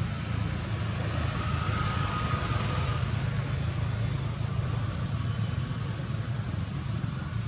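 A motor vehicle engine running steadily as a low rumble, with an even hiss of background noise over it.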